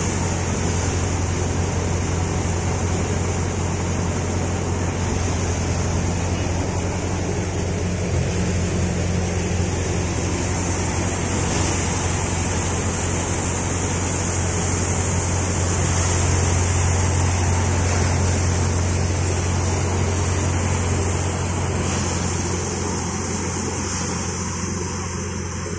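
Paddy thresher running steadily, threshing rice straw: a constant low machine drone with a continuous rushing hiss as the sheaves are fed in and straw is blown out.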